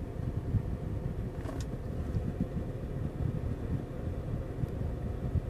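Steady low rumble inside a car cabin, with one faint tick about one and a half seconds in.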